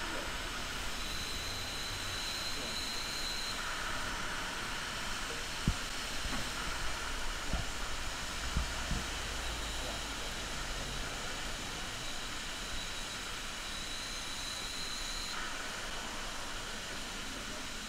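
Steady hiss of steam escaping low at the front of a standing steam locomotive, with a few dull knocks in the middle.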